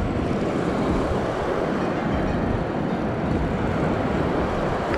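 Steady wind noise rumbling on the microphone, with surf breaking on the beach.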